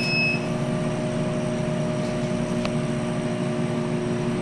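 Steady hum and whoosh of a 50 W CO2 laser cutter's fans and pumps running with the machine switched on. A short high beep sounds right at the start, and a single light click a little past halfway.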